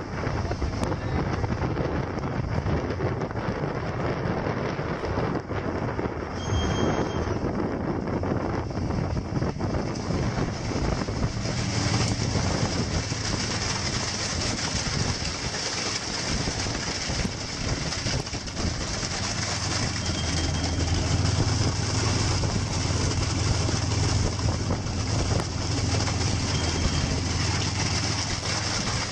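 Steady rushing of water and wind with the low hum of a fishing boat's engine, which grows stronger about halfway through. A short high beep sounds about seven seconds in, and fainter ones come later.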